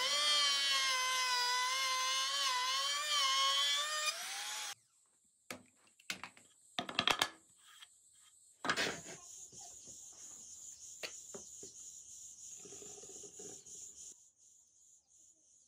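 Handheld trim router with an edge guide cutting a rebate along a pine board, its high whine dipping and rising as the bit loads up, cut off abruptly about five seconds in. After it, a few sharp knocks and clicks as the board is handled.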